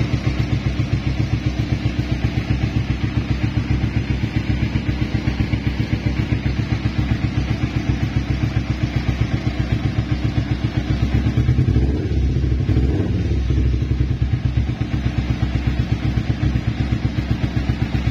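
Carbureted Kawasaki Ninja 250's parallel-twin engine idling steadily through an R9 Racing aftermarket exhaust, an even, bassy pulse. It swells slightly for a moment around twelve seconds in.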